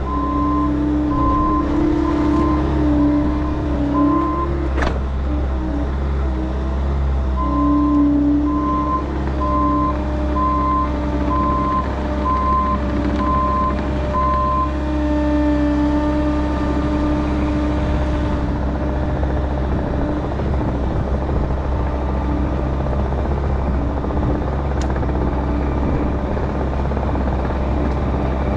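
Diesel engine of compact earthmoving equipment running steadily under work, with a backup alarm beeping about once a second in two runs, at the start and again from about a quarter of the way in to about halfway.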